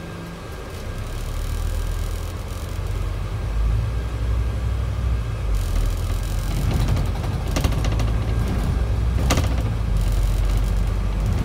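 Scania Enviro400 double-decker bus's five-cylinder diesel engine pulling away and building speed, heard from the top deck: a low rumble that grows louder over the first few seconds, then runs steadily. Two sharp clicks come in the second half.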